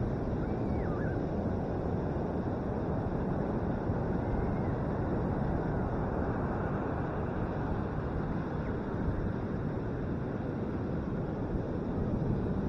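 Steady roar of ocean surf breaking on a sandy beach, mixed with wind on the microphone.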